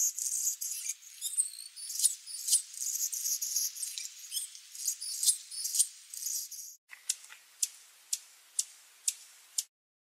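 Hummingbird's high-pitched, squeaky chittering, followed about two-thirds of the way in by a run of sharp, evenly spaced chip calls about two a second that stops shortly before the end.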